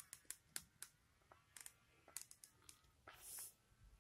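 Near silence: room tone with faint scattered clicks and a brief soft hiss a little after three seconds in.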